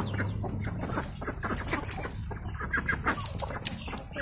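Domestic hens clucking in short, irregular calls while the flock forages and pecks at grass.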